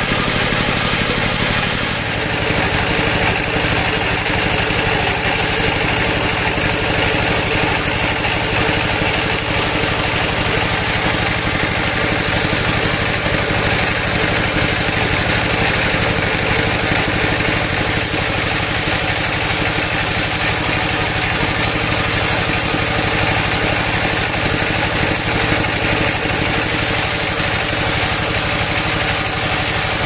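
Band sawmill running steadily: a loud, continuous mechanical drone and whir, with a slight shift in tone about two seconds in.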